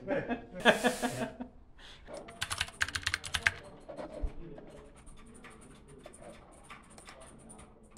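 A short burst of a voice at the start, then a quick run of sharp clicks a couple of seconds in, fading to lighter scattered ticks.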